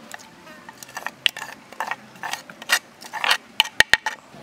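Hard coconut shell scraping and clicking as its contents are scraped and tipped out into a bowl: a run of short scrapes, then three sharp knocks close together near the end.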